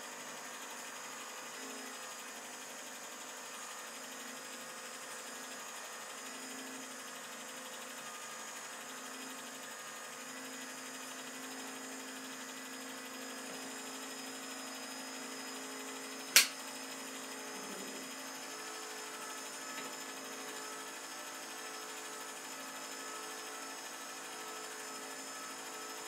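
Home-movie film projector running with a steady mechanical whir, with one sharp click about sixteen seconds in.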